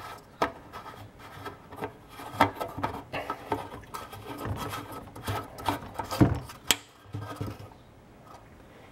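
Scattered clicks, light knocks and rubbing of objects being handled at a workbench, the loudest knocks about six seconds in, dying away a second or so later.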